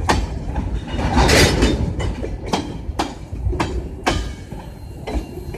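Freight train tank cars rolling past, their wheels clacking over rail joints at uneven intervals over a steady low rumble. A brief hiss swells and fades about a second in.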